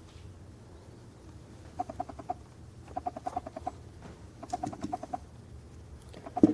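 Four short runs of rapid, evenly spaced clicks, about a dozen a second, from a small ratchet mechanism being worked on a 1:50 diecast drill rig model.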